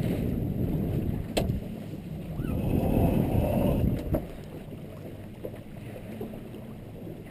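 Small sailboat under way: a steady rush of wind and water along the hull, with a single knock about a second and a half in. The rush drops off about four seconds in.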